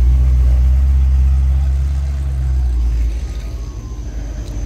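A vintage 1930s-style car's engine running as it rolls slowly past close by: a steady low rumble that drops away about three seconds in.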